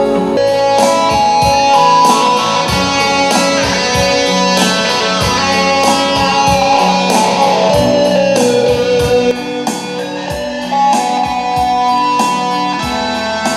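Live reggae band playing: electric guitar and keyboards over a steady drum beat.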